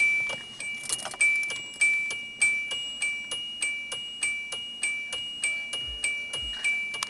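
Starter solenoid of a 1999 Hyundai Elantra clicking over and over without cranking the engine, the sign of bad starter cable connections. Over it, a bright two-note ding repeats about every 0.6 s.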